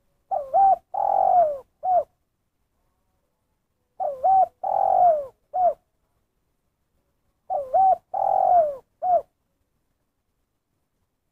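Spotted dove (tekukur) cooing its 'kuk satu' call three times, one phrase about every three and a half seconds. Each phrase is a quick double coo, a longer falling coo and a single short closing note. The calls stop a couple of seconds before the end.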